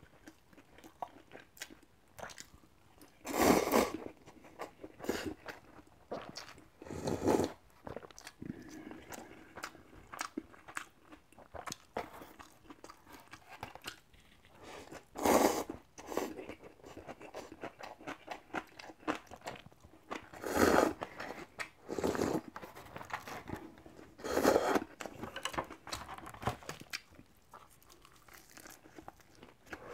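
Close-up eating sounds: instant cup-ramen noodles slurped in about half a dozen louder bursts, with chewing and crunching of kimchi between them.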